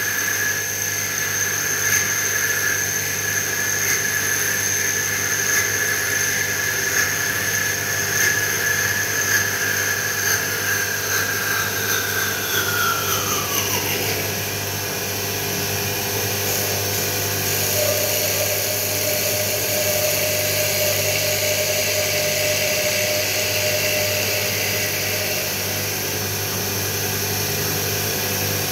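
Mini CNC wood-turning lathe running: the spindle motor whines steadily while the cutter shaves softwood into a sphere. A high whine slides down in pitch about halfway through, and a lower steady tone comes in shortly after.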